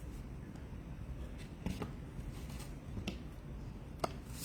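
Trading cards being handled, with a few faint, sharp clicks and slides of card and card stock over low steady background hum.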